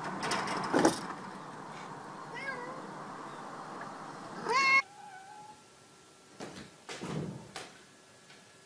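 Domestic cat meowing: a faint meow about two and a half seconds in, then a loud rising meow a little before halfway. A few short knocks and thuds sound around it.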